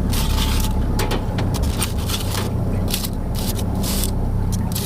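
Boat engine running steadily, with short crackling, scraping noises over it about once a second.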